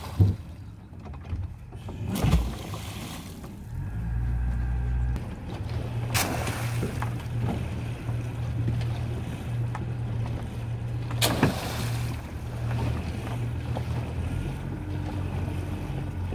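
Fishing boat's engine running steadily under way, getting louder about four seconds in, with a few sharp knocks and a splash as a buoy and shrimp traps go over the side.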